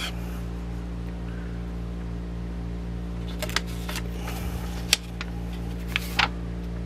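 Pages of an old book being turned by hand: a few short paper rustles and crinkles from about halfway through to near the end, over a steady low hum.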